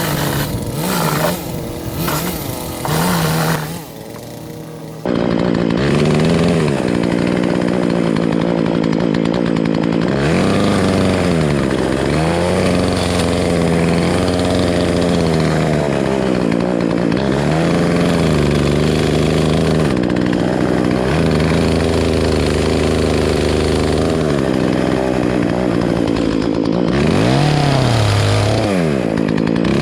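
Chainsaw revving in short uneven bursts, then running at high speed from about five seconds in. Its pitch dips and recovers several times as it bogs under load, cutting into a tree.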